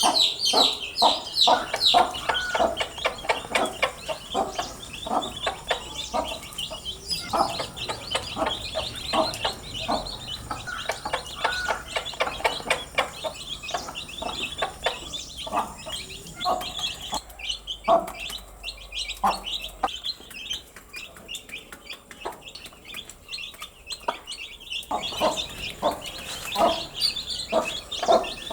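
Baby chicks peeping, many short high calls overlapping in a constant chatter, with lower, shorter calls mixed among them. The calling thins out for a few seconds past the middle, then picks up again.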